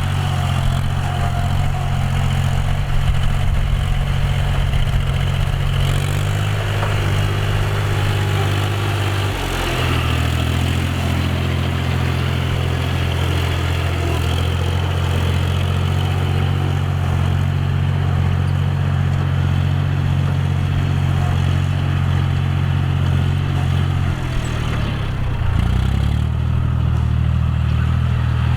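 John Deere 5045D tractor's three-cylinder diesel engine running steadily while ploughing. The engine note shifts about ten seconds in and dips briefly about 25 seconds in before settling again.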